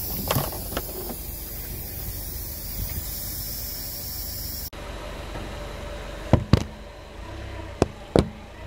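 Car tyre rolling slowly over liquid-filled plastic syringes, with a few plastic cracks about half a second in. Later, several sharp snaps come as a tyre rolls over scattered water beads.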